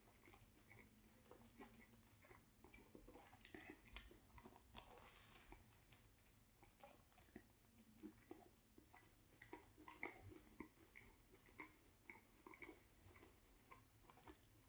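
Faint chewing of a mouthful of a chicken, cheese and vegetable sub sandwich, with many small irregular mouth clicks and soft crunches.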